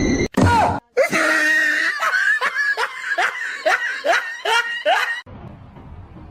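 Hearty laughter: a quick run of short 'ha' bursts, each falling in pitch, that breaks off abruptly a little after five seconds.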